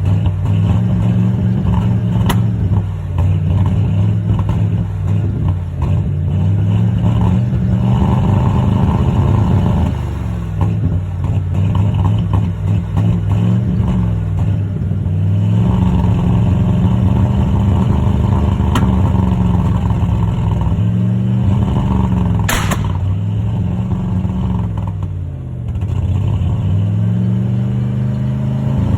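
1995 Ford F-150's 302 V8 running on a failing alternator, its engine speed rising and falling again and again. A few sharp clicks cut through, the strongest about three-quarters of the way through.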